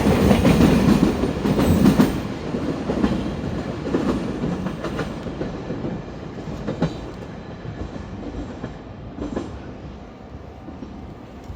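Freight train wagons rolling past, their wheels clattering over rail joints; the sound is loud at first and fades steadily as the train draws away.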